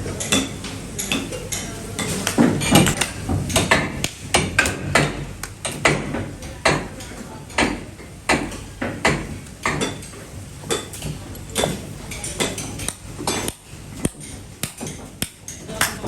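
Hammer blows on scrap metal, struck irregularly a few times a second, some of them ringing briefly, with clanking metal in between.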